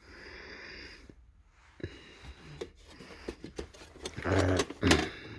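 Small metal hand tools, wrenches among them, clinking and rattling against each other as they are rummaged through in a packed old metal toolbox. Scattered clinks at first, becoming denser and louder clattering about four seconds in.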